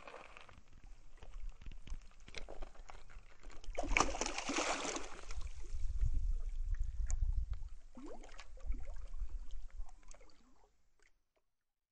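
A large hooked fish splashing and thrashing in shallow water at the bank, with the loudest splash about four seconds in and smaller sloshes around it. A low rumble is underneath, and the sound cuts off suddenly near the end.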